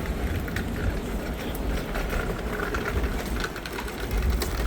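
Street noise: a steady low rumble of passing traffic, with scattered short clicks and knocks.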